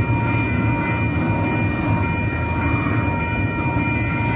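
Double-stack intermodal container train rolling past close by: a steady rumble of the well cars' wheels on the rails, with a steady high-pitched ringing tone over it.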